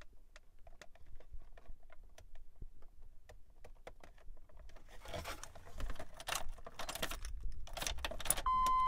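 Faint clicks and scrapes of fingers working a gauge needle onto its aircore motor shaft in a GM truck instrument cluster, then a few seconds of rustling with keys jangling. Near the end a steady electronic beep tone starts and holds.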